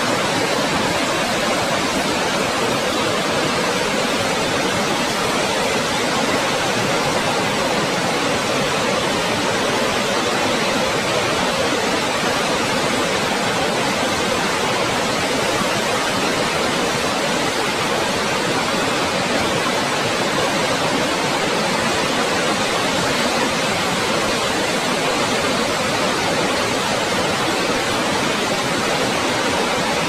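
Dettifoss waterfall rushing into its canyon: a loud, steady wash of water noise with no breaks.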